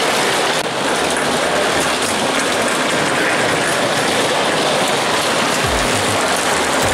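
Electric bumper car running across the ride's metal floor, a steady rattling noise of wheels and motor.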